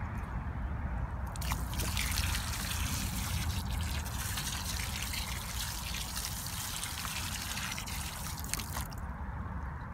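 Water running and trickling, as when a hose waters in the backfilled soil around the sides of a preformed pond, starting about a second in and stopping near the end. A low rumble runs underneath.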